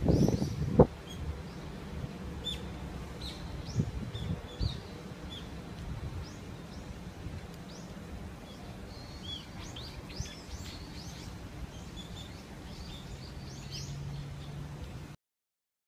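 Small birds chirping in short, high calls over a steady low outdoor rumble, with a few heavy low thumps on the microphone in the first second. The sound cuts off suddenly near the end.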